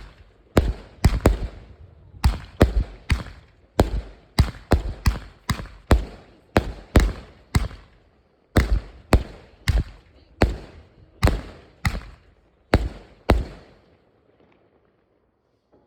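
Fireworks going off in a rapid string of sharp bangs, about two a second, which stop a couple of seconds before the end.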